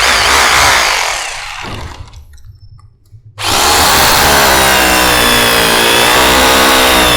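Stanley SHR263K SDS rotary hammer in hammer-drill mode, drilling into a floor. A first burst dies away, then about three and a half seconds in the drill starts again and runs steadily, the bit going in easily.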